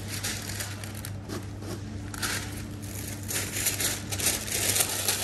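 Irregular rustling and crinkling noises, busiest in the second half, over a steady low hum.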